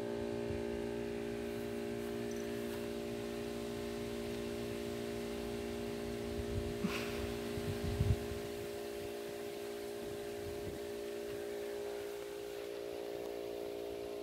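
A steady machine hum made of several even tones, with a few dull thumps about seven to eight seconds in.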